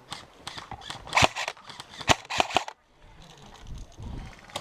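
Airsoft guns firing single shots, about four sharp cracks at uneven spacing, two of them close together near the middle.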